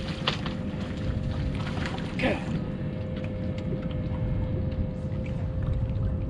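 Outdoor wind-and-water noise around a bass boat, with water moving against the hull, under a thin steady hum. There is a sharp click about a quarter second in, and another about two seconds in with a short falling swish, fitting the rod and reel as a cast goes out.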